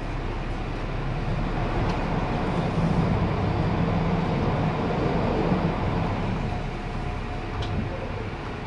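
Passenger train running along the line: a steady rumble that grows louder in the middle and eases off near the end, with a few faint ticks.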